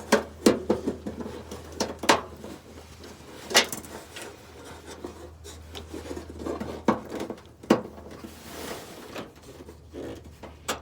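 Irregular sharp plastic clicks, knocks and rubbing as a bulb socket is worked by hand into a car's park-light housing to lock it in place.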